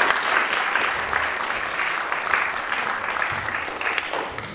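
Audience applauding, a dense patter of many hands clapping that thins and fades away near the end.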